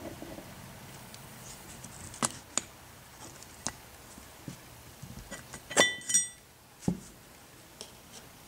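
A steel pick clicking and scraping against a cast-iron brake caliper and its pistons as dust boots are pried out. It gives a scatter of sharp taps, with two ringing metallic clinks about six seconds in.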